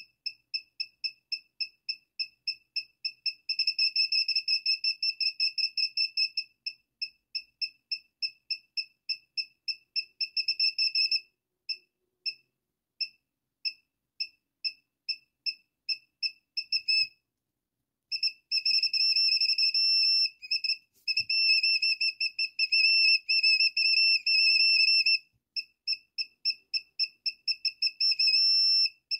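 Small piezo buzzer in a one-transistor circuit beeping a high-pitched tone in rapid pulses, about four or five a second, that now and then run together into a steady tone for a second or two. It stops for about a second midway, then starts again.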